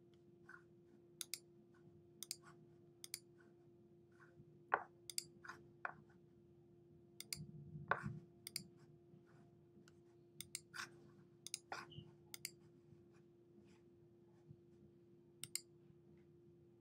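Faint, irregular clicks of a computer mouse, some in quick pairs, over a faint steady hum.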